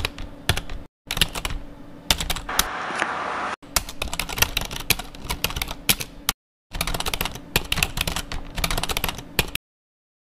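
Typing on a computer keyboard: quick, irregular key clicks in several runs that cut off abruptly to silence a few times and stop shortly before the end.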